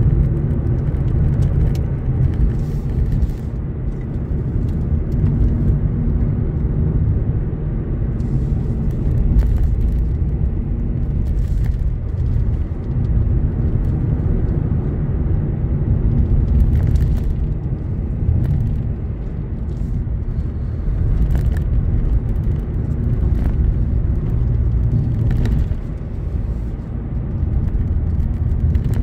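A car driving along an open road, heard from inside the cabin: a steady low rumble of tyres and engine that swells and eases slightly with the road.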